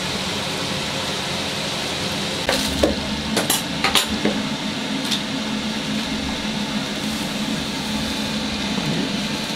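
Minced meat frying in a pan, a steady sizzling hiss over a low hum, with a few sharp crinkles and clicks in the middle as a plastic bag of breadcrumbs is handled and poured into a plastic bowl.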